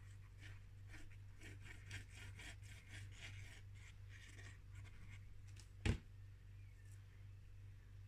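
Fine-tip liquid glue bottle being squeezed, its nozzle scratching faintly along a strip of cardstock in a run of soft ticks. About six seconds in comes a single sharp knock.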